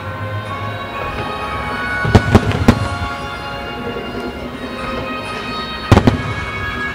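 Fireworks shells bursting with sharp bangs: a quick cluster of three or four about two seconds in and a pair near the end, over music playing throughout.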